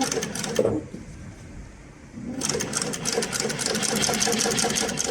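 Heavy-duty industrial lockstitch sewing machine stitching leather upholstery with thick thread. There is a short run in the first second, a lull, then steady fast stitching from about two and a half seconds in.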